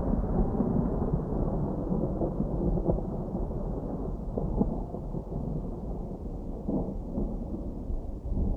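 Distant thunder rumbling low and continuously, easing off somewhat toward the end.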